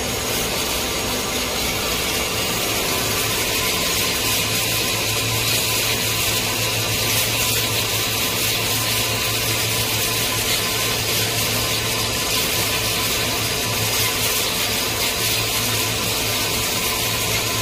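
Industrial horizontal band saw running a 50 mm wide, 0.9 mm thick steel blade through a large solid steel round bar. The cut gives a steady, even hiss over a constant low hum from the machine.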